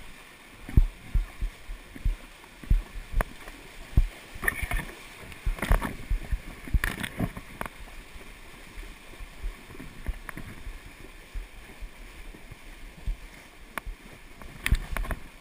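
Icelandic horses wading through a shallow stream, their hooves splashing irregularly in the water, with dull thumps throughout.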